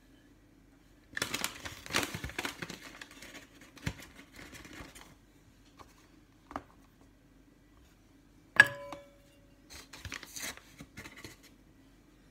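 Flour being scooped and levelled with stainless steel measuring cups: rustling and scraping with a few small knocks. About eight and a half seconds in comes one sharp metallic clink that rings briefly.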